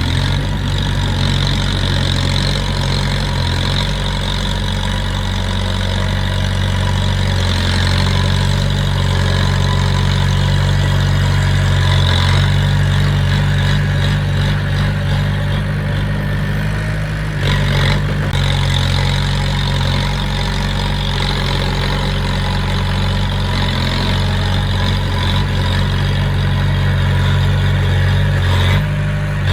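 Heavy-equipment diesel engine running steadily at a constant speed, a low hum with a short dip in level just past halfway.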